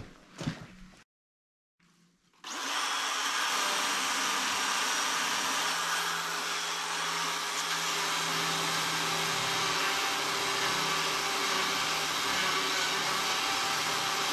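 Battery-powered chainsaw cutting through a pine limb. It starts about two and a half seconds in and runs steadily, with an even electric motor hum under the chain noise.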